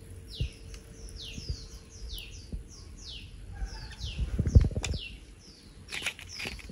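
A bird chirping over and over in the background, each chirp a quick falling note, about three a second. Low knocks and handling noises from plastic toy figures being moved come through now and then, loudest about four and a half seconds in.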